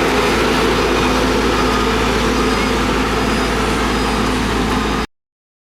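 Heavy construction machine's diesel engine running steadily at a constant pitch, cutting off abruptly about five seconds in.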